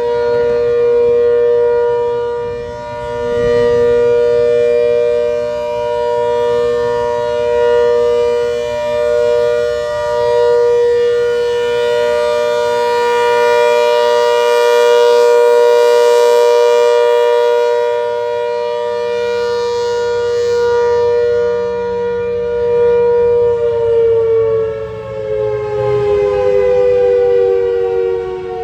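ACA Hurricane MKII outdoor warning siren sounding a steady high tone, swelling and fading in loudness every few seconds. About 24 seconds in it begins to wind down, its pitch falling.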